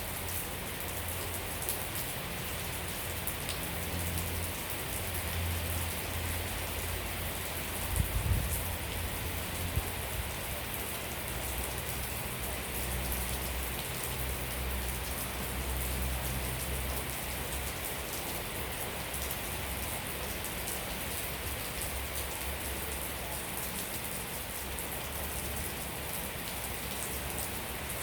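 Steady rain falling on surfaces, with a low rumble underneath and a single low thump about eight seconds in.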